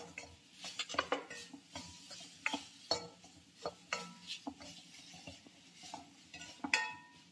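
A spoon stirring mango pieces and spice powders in a pan, scraping and clinking against the pan in irregular knocks, some of them leaving a short ring.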